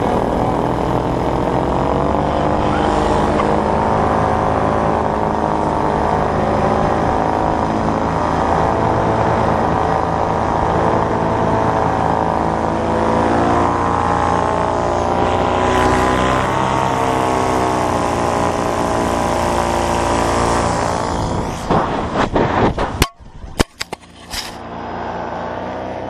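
Paramotor engine and propeller running steadily in flight, its pitch wavering up and down with throttle. Near the end the engine note falls away and a series of sharp knocks and clatters follow.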